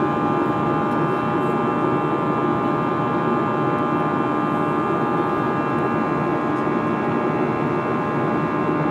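Airbus A320 cabin noise in flight: a steady rush of air and engine hum, with several steady whining tones.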